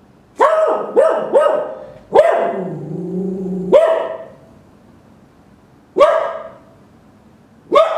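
Cocker spaniel barking: seven short, sharp barks in uneven groups, three quick ones, then one that runs into a long, lower drawn-out growl of about a second and a half, then three more spaced out.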